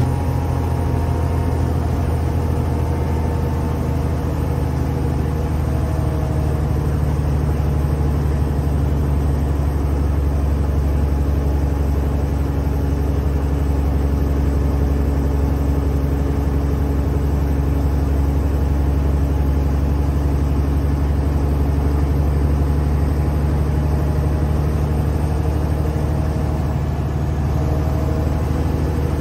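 A 1981 ex-China Motor Bus ML1's diesel engine and Voith DIWA 851 three-speed automatic gearbox running steadily while the bus cruises, heard from inside the passenger cabin. There is a strong low drone under a faint, slowly drifting whine, along with road noise.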